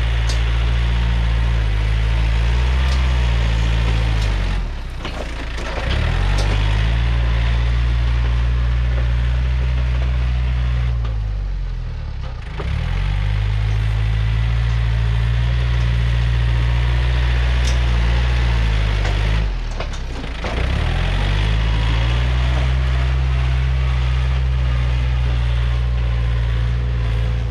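Yanmar EF514T 51-horsepower diesel tractor engine running steadily while the tractor pushes soil with its blade. Three times, about five, twelve and twenty seconds in, the engine pitch bends and the sound drops briefly before picking back up.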